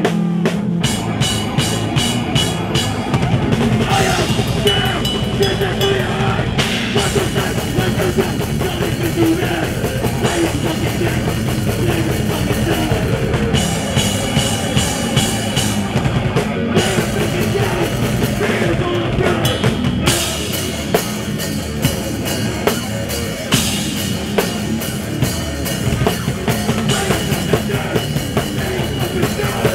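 Hardcore punk band playing live at full volume, with pounding drums and crashing cymbals over dense guitar and bass. Sharp drum hits land at an even beat through the second half.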